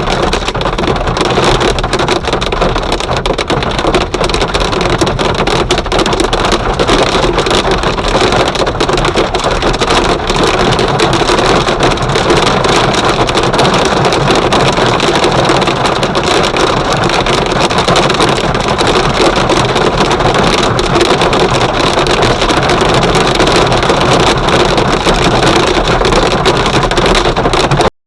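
Heavy hail falling: a loud, steady, dense patter of countless small hits of hailstones striking surfaces. It cuts off suddenly at the very end.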